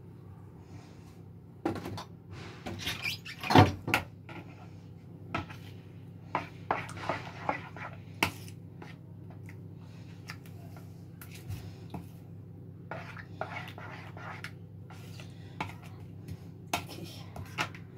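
A spoon clinking and scraping against a plastic mixing bowl as a yogurt dip is stirred, in irregular clusters of taps, the loudest about three and a half seconds in.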